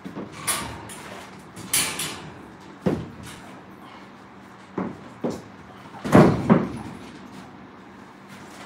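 Metal wire dog exercise pen rattling and knocking as it is handled while a puppy is lifted in and out: about six separate clanks and rattles, the loudest a quick pair about six seconds in.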